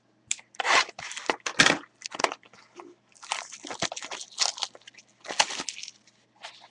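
Packaging of a trading-card mini box being torn open and handled: irregular crinkling and tearing of the wrapper, in quick uneven bursts.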